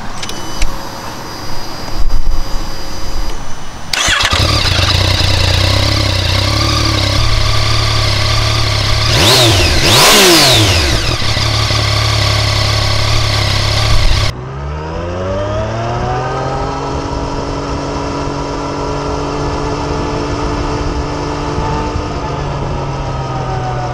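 Yamaha XSR900's three-cylinder engine through its stock exhaust, starting up about four seconds in and idling, blipped once up and back down around ten seconds. Then, ridden, it pulls up through the revs and settles into a steady cruise.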